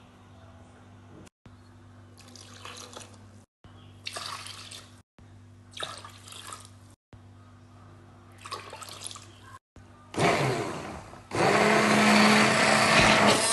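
A few short splashing, pouring sounds as water goes into a plastic bowl of flour. About ten seconds in, an electric stick blender starts up in the thin crêpe batter and runs loudly and steadily, with a motor hum.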